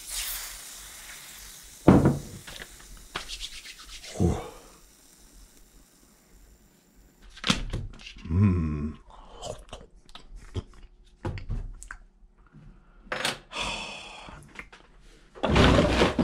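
Water poured from a glass carafe into a paper cup of instant noodles, then the carafe knocked down on a wooden table. A fork scrapes and stirs the noodles in the cup. Near the end a drawer slides open and its contents clatter and rustle.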